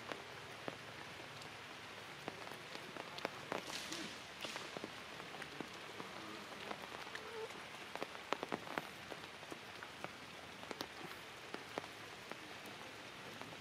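Light rain falling on forest leaves: a steady hiss with many separate sharp drips of single drops, thickest about two thirds of the way through.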